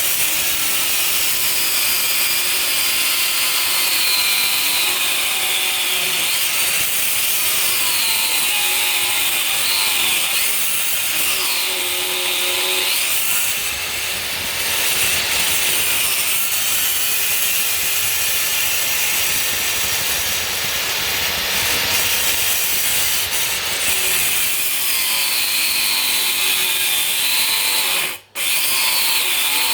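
Electric stone-cutting saw with a dry-cut diamond disc cutting into stone, running continuously, its motor whine dipping and recovering in pitch again and again as the blade loads up in the cut. The sound cuts out briefly near the end.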